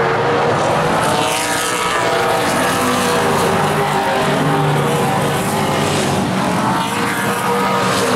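Late model stock cars racing on an oval: several V8 engines running hard at once, their pitches rising and falling as the cars pass.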